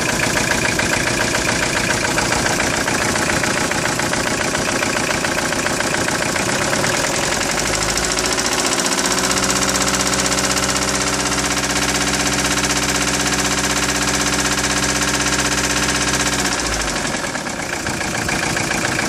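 Engine running with a rapid, rhythmic knocking. About eight seconds in the sound settles into a steady hum for several seconds, then the knocking returns near the end.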